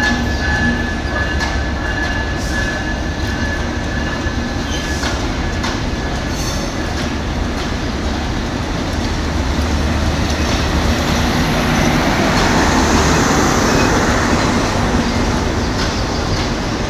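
Passenger coaches rolling past on the track: a steady rumble of steel wheels on rails with occasional clicks. A high steady metal squeal sounds during the first couple of seconds, and the noise swells about twelve seconds in before easing off.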